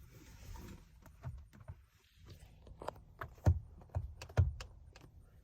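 Scattered light clicks and taps, with two louder knocks in the second half, from a screwdriver working the airbag's T20 Torx retaining screws at the back of a steering wheel.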